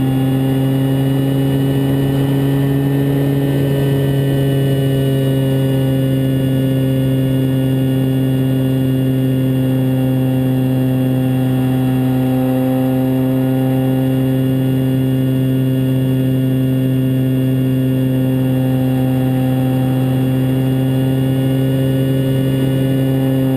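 Multiplex Mentor RC plane's electric motor and propeller running at a steady speed in flight, heard close up from a camera on the airframe, with a steady rush of air underneath.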